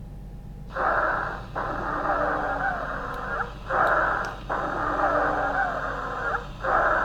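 Stethoscope recording of lung sounds with wheezes (dry rhonchi), starting about a second in. Short inhalations alternate with longer exhalations that carry wavering musical whistles, with the exhalation dominating. The wheezes are the sign of air forced through narrowed small airways, a bronchial component of breathlessness.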